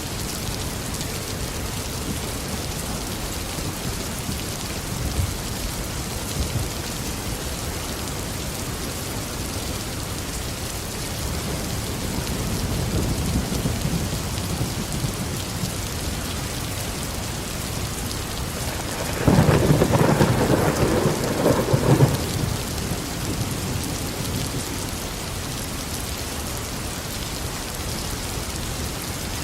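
Steady tropical rain falling. A low rumble of thunder swells about twelve seconds in, and about two-thirds of the way through a louder peal of thunder lasts two or three seconds.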